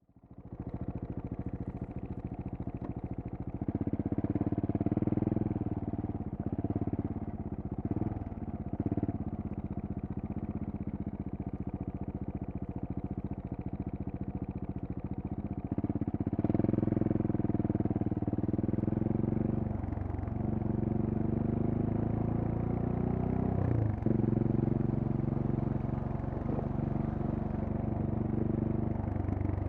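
2018 KTM 690 Duke's single-cylinder engine running through a LeoVince decat and slip-on exhaust while being ridden, the throttle opening and closing. The engine note fades in over the first second, gets louder about four seconds in and again around sixteen seconds, and has several brief dips and swoops in pitch in between.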